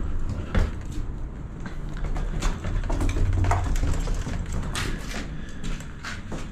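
Footsteps going down steps and onto a concrete floor strewn with debris: an irregular scrape or crunch about every second, over a low steady rumble.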